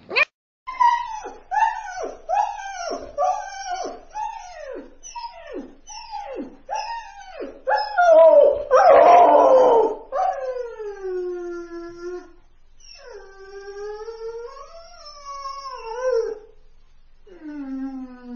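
Puppy crying, slowed down. First comes a run of short whimpers, each falling in pitch, about one every two-thirds of a second. About eight seconds in there is a louder, rougher cry, followed by three long drawn-out whines that waver and slide downward.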